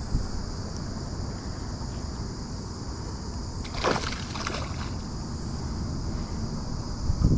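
A splash on the water's surface about four seconds in, over steady wind noise on the microphone, with a low thump near the end.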